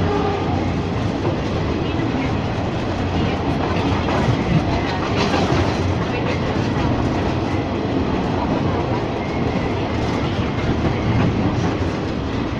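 Ex-JR 203 series electric multiple unit running along the track: a steady rumble with wheels clacking over rail joints and a few sharper knocks about four to six seconds in.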